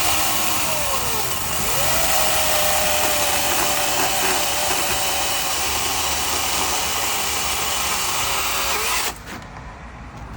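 Chainsaw running at high revs while cutting up a storm-broken treetop. Its pitch swings up and down in the first two seconds, then holds steady and sinks slightly, and the sound cuts off suddenly about nine seconds in.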